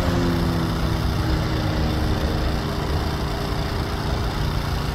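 Road traffic going by on a busy road: a steady low rumble, with a vehicle engine's drone sinking slightly in pitch and fading over the first few seconds as it passes.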